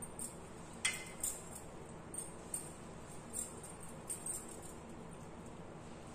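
Bangles on a wrist clinking lightly in a scattered string of short jingles, the sharpest about a second in, as the hands stuff bitter gourds with spice filling.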